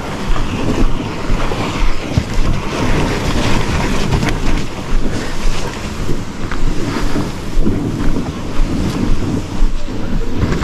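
Wind buffeting the microphone in uneven gusts, with water lapping and splashing around a kayak.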